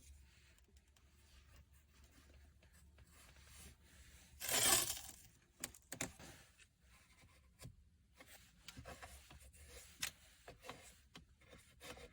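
Strip of Tesa fabric tape being torn or peeled, one loud rip about four and a half seconds in, among faint clicks and rubbing as the plastic cup-holder parts are handled and taped.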